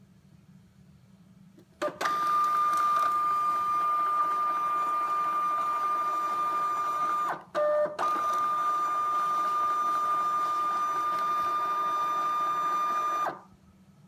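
Zebra GX430t thermal transfer label printer printing and feeding labels: its motor runs with a steady high whine for about five seconds, stops briefly, then runs again for about five seconds.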